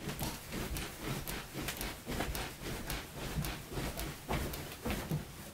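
A person jumping on a queen mattress and box spring on a steel platform bed frame: a steady run of soft, muffled thumps with the bedding rustling. There is no squeak or creak from the frame, showing it is solid and noise-free under load.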